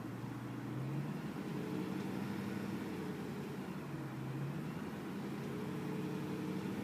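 2010 BMW M3's V8 engine running, held at raised revs that drift gently up and down, with a ticking from the bottom of the engine that sounds as if something loose is jumping around inside. The tick comes on only after the engine has reached full running temperature.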